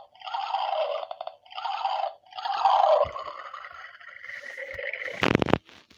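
Toy kettle's built-in speaker playing its recorded water sound effect, a choppy gurgling in short bursts, fading into a fainter hiss with a faint rising whine. A thump a little after five seconds.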